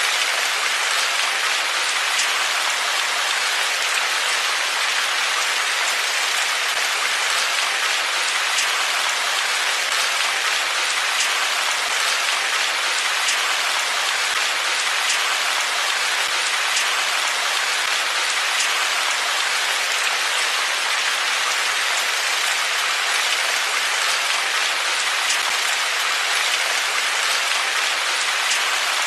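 Steady rain falling, an even hiss with faint scattered drop ticks through it.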